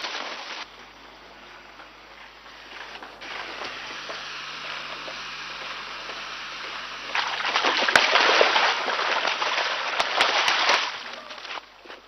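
Liquid spraying from a spray lance onto the ground, a steady hiss. Near the end it gives way to a louder stretch of liquid gushing and splashing into muddy water, with a few sharp clicks.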